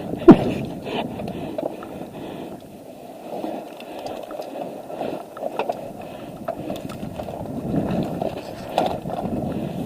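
One sharp knock about a third of a second in, then scattered small clicks and taps over a low rustling haze, like gear and movement noise close to the microphone.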